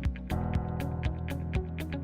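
Music with a steady beat: regular drum hits and quick ticks over held chords.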